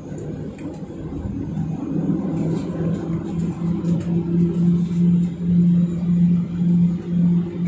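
Cabin sound of a Boeing 737-900ER's CFM56-7B engines at idle as the jet taxis off the runway after landing. A rumble dies away, and about two seconds in a steady low hum takes over that swells and fades a little more than once a second.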